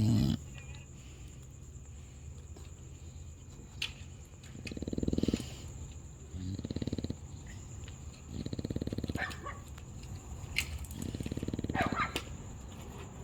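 A dog snoring loudly in its sleep: four rattling, low-pitched snores, each about a second long and about two seconds apart.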